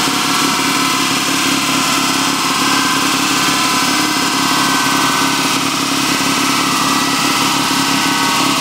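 MG Midget race car's four-cylinder engine running at a steady speed while strapped down on a rolling road; loud and unchanging throughout.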